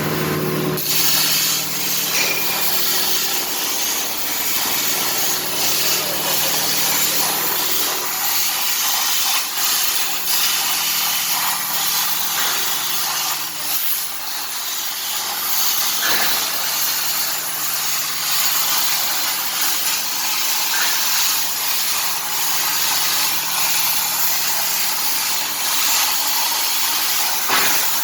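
CNC cutting machine cutting steel, a loud steady hiss with a low machine hum beneath it.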